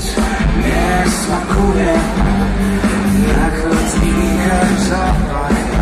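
Live band playing a pop-rock song over a PA, with a male lead vocal singing over drums, bass and guitar, heard from within the audience.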